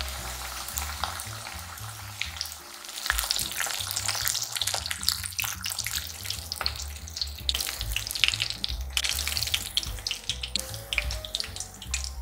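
Panko-coated salmon pieces deep-frying in oil: a steady crackling sizzle full of small pops.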